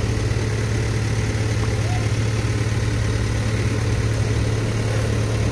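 A heavy diesel engine idling steadily: an even low hum with a fast regular pulse.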